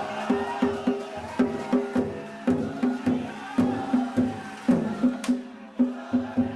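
Danjiri festival percussion: drum and ringing gongs struck together in a steady, driving rhythm of about three strokes a second.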